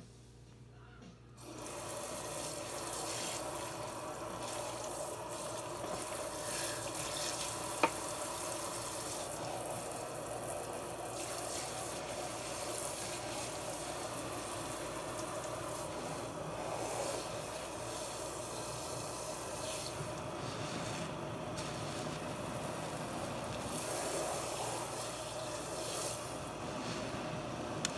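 Tap water running steadily into a sink full of soapy foam and sponges, starting about a second and a half in. A single sharp click about eight seconds in.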